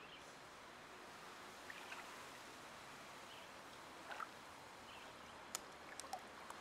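Quiet outdoor ambience: a faint steady hiss with light water movement in a small pool, a few faint bird chirps, and two sharp clicks near the end.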